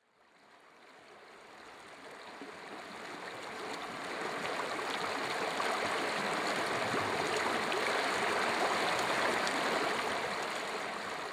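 Shallow river running over rocks, a steady rush of water that fades in from silence over the first few seconds and eases slightly near the end.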